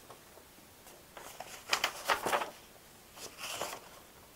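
Paper pages rustling as a bound printout is leafed through, twice: about two seconds in and again about a second later.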